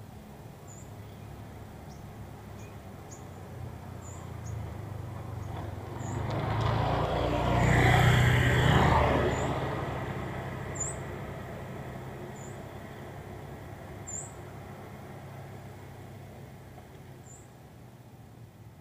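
A motor vehicle passes on a nearby road: its engine drone and tyre noise build up to a peak about eight seconds in, then fade away slowly. Faint short high bird chirps repeat every second or two.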